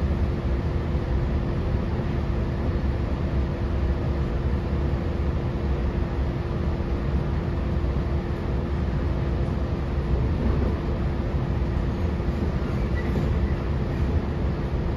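Interior of an NSW TrainLink Oscar H set electric train under way: a steady low rumble of the running train with a constant hum throughout.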